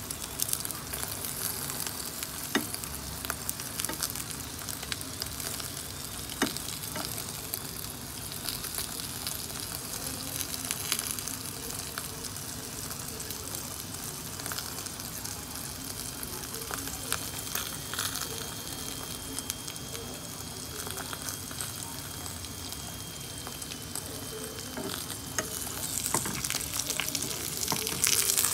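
Beaten egg sizzling as it fries on a paratha in a frying pan, with a few sharp clicks of the fork against the pan.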